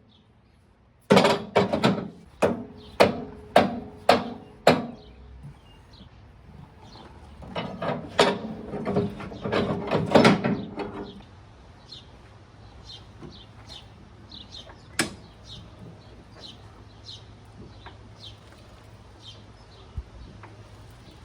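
Metal being struck with a hammer in steady blows about two a second, each with a brief ringing tone, then a few seconds of faster clattering, all during work to remove a fire-melted hydraulic lift cylinder. After that, only a low steady hum with faint chirps and a single sharp click remain.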